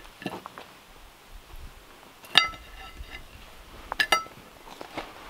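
Plates clinking as grilled grouse is served onto them: a few light taps, a sharp ringing clink about two and a half seconds in, and a quick double clink about four seconds in.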